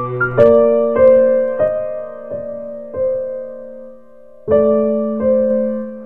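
Slow, gentle piano music: single notes struck roughly once every half second to second, each ringing and fading, with a pause of about a second and a half before the notes resume.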